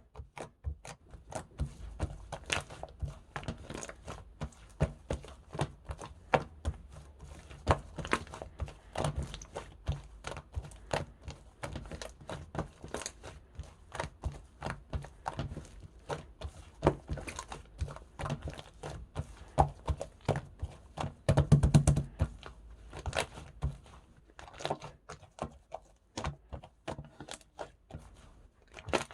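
Hands squishing and poking slime, making an uneven run of sticky clicks and small pops, with a louder, denser flurry about three quarters of the way through.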